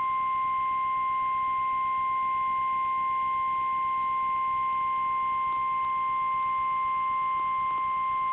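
NOAA Weather Radio 1050 Hz warning alarm tone: one steady, unbroken high-pitched tone over a faint radio hiss. It signals that a warning message is about to be broadcast.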